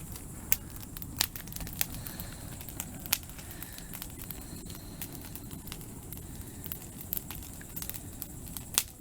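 Aspen logs burning in an open campfire: a steady low rush of flame with irregular sharp crackles and pops, several of them standing out. The pops are the wood spitting sparks and embers, as aspen does.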